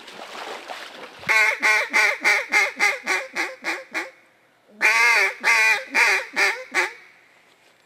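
Hand-blown mallard duck call: a run of about ten quacks starting about a second in, fading in volume as it goes, then after a short pause a second run of about six quacks.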